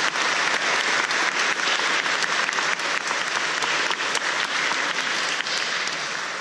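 Audience applauding: a dense clatter of many hands clapping, tapering off near the end.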